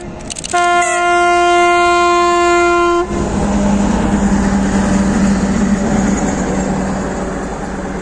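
TEP70BS diesel passenger locomotive sounding one steady horn blast of about two and a half seconds that cuts off sharply, followed by the engine running and the rumble of the train rolling past, slowly fading.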